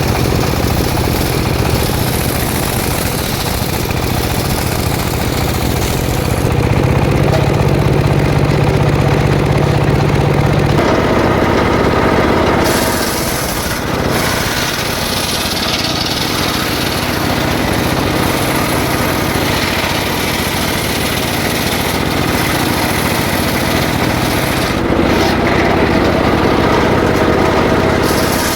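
Petrol-engine circular saw running and cutting through jackfruit wood. The engine note shifts as the blade goes in and out of the cut, growing louder about six seconds in and again near the end.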